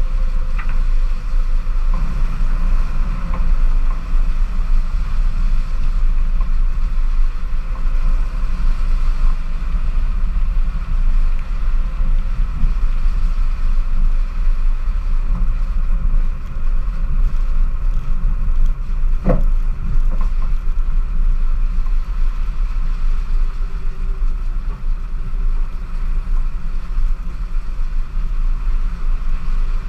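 2016 Subaru XV driving along a muddy dirt track, heard from a camera on its bonnet: a loud, steady low rumble of the running car and its tyres. One sharp knock about two-thirds of the way through.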